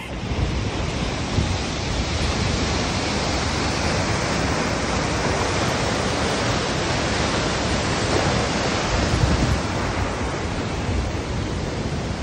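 Nevada Fall's whitewater pouring over the granite lip: a steady, loud rush of falling water.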